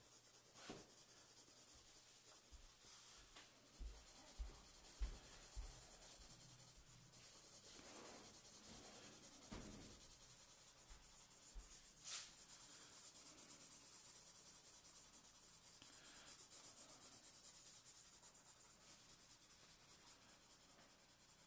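Faint scratching of a marker tip drawn lightly across paper in many quick sketching strokes. A few soft knocks and one sharp click occur about halfway through.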